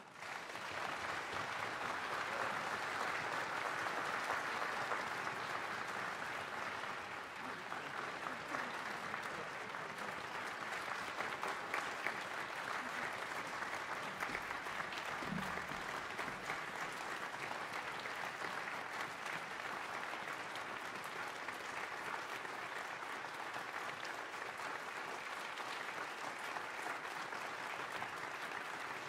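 Concert audience applauding, breaking out suddenly as the music ends and continuing steadily.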